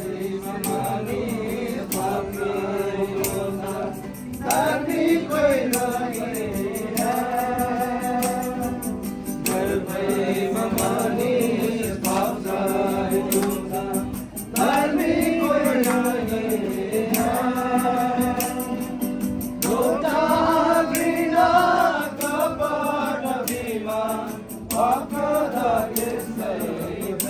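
Group of voices singing a worship song over instrumental music with a steady beat.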